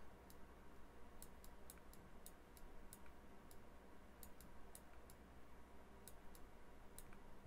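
Faint, irregular clicks of a computer mouse, about two or three a second, over a steady low hum.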